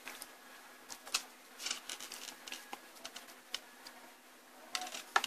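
Scattered light clicks and taps from handling a small circuit board and a metal test probe, the probe tip touching the board, over a faint steady hum.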